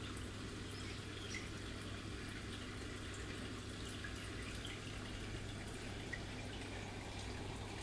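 Faint water trickling and dripping, as in a room of aquarium tanks, with small scattered drips over a constant low hum.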